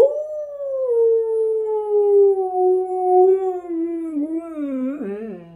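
Husky howling: one long howl that rises at the start, then slowly sinks in pitch, wavering and dropping lower near the end.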